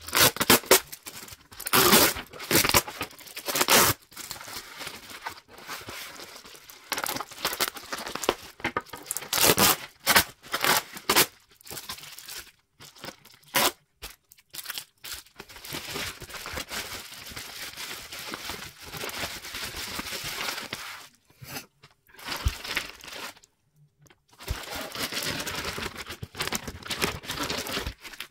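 Packing tape being peeled and torn off a bubble-wrapped parcel, with sharp rips loudest in the first few seconds, then bubble wrap and a plastic bag crinkling and rustling as a crystal is unwrapped.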